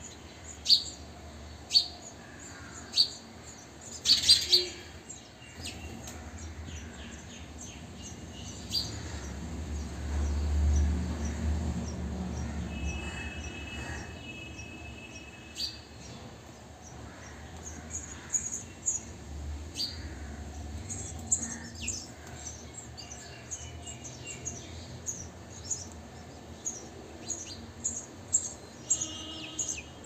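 House sparrows chirping: a few sharp single chirps about a second apart in the first five seconds, then a fast run of fainter, higher chirps in the second half. A low rumble swells and fades in the middle.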